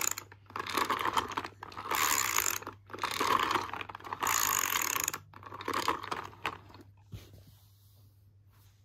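A toy's ratchet mechanism clicking in repeated bursts of about a second each, five or six times, dying away about seven seconds in.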